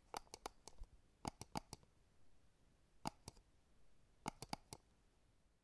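Faint, sharp clicks in quick clusters of two to four, a cluster about every second or so, over a low hiss.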